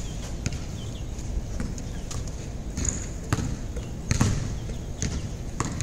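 Basketball bouncing on a concrete court during play: a run of irregularly spaced thuds, about seven in all.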